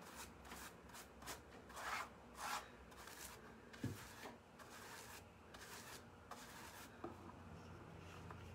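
Faint, scratchy strokes of a wide paintbrush rubbed back and forth over a textured lampshade, brushing on sealer, about one or two strokes a second.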